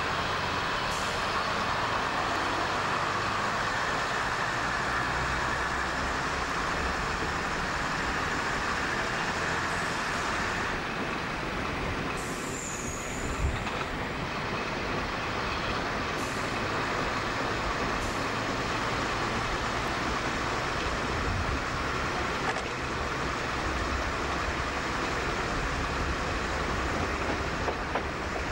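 Diesel multiple unit running along the line, a steady rumble of engine and wheels on the rails with rushing air at the open window.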